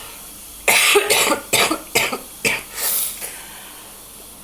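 A woman's coughing fit: about six coughs in quick succession, starting about a second in.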